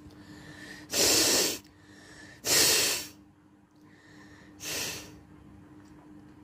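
A person forcefully blowing air out through the nose three times in a row, each blast about half a second long, the third one weaker.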